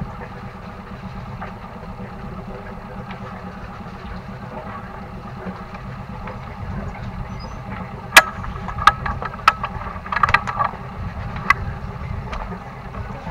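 Sailboat's inboard engine running steadily at low revs in slow ahead gear, a low rumble. From about eight seconds in, several sharp knocks over some three seconds stand out above it.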